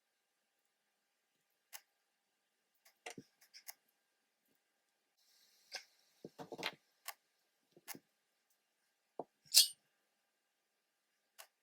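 Scattered small clicks and taps of hand tools and wires being handled at a workbench, about a dozen in all, with one sharper, louder snap about nine and a half seconds in.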